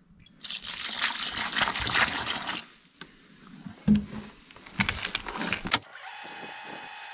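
Drill with a paddle mixer churning cement mortar in a plastic bucket: a noisy stretch of churning, a few sharp knocks against the bucket around four to five seconds in, then from about six seconds a steady, sped-up motor whine.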